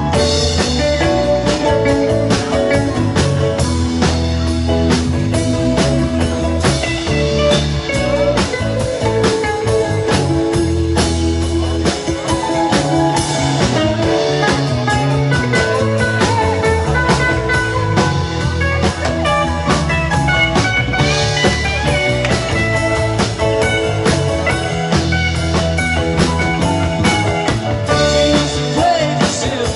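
Live rock band playing amplified electric guitars, bass guitar and drum kit, with a steady drum beat throughout.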